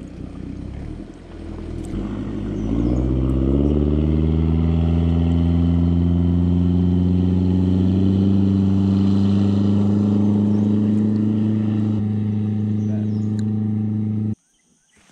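Motorboat's outboard engine speeding up, its pitch rising over a couple of seconds, then running steadily at speed; the sound cuts off suddenly near the end.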